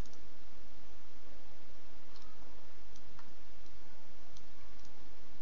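A few scattered computer mouse clicks: a quick cluster at the start, then single clicks every second or so. Underneath is a steady microphone hiss with a low hum.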